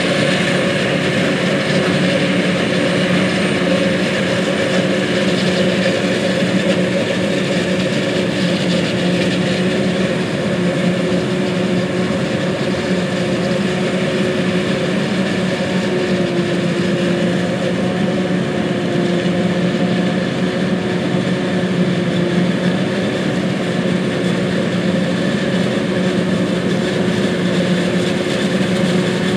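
John Deere 8600 self-propelled forage harvester running steadily under load while chopping corn for silage: a constant engine and machinery drone with several steady tones.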